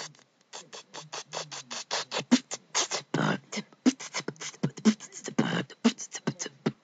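A person beatboxing: a fast run of sharp vocal clicks and hisses, with deeper thumps about once a second.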